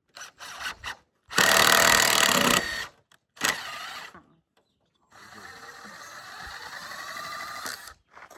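Power drill driving screws into wood in several bursts: a few short spurts, a loud run of about a second, then a longer steady run of nearly three seconds near the end.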